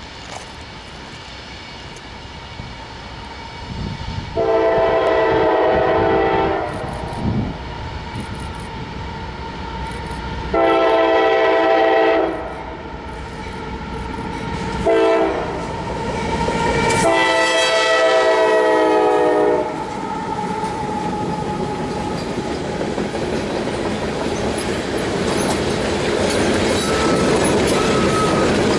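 CSX GE AC4400CW diesel locomotive sounding its horn in the grade-crossing pattern: long, long, short, long. The train's rumble and wheel clatter then grow louder as the locomotives and grain hopper cars roll past near the end.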